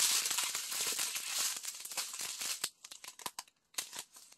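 Small plastic bags of round diamond-painting drills handled and shaken, the tiny beads rattling inside with plastic crinkling. Dense rattling thins to scattered clicks about halfway through.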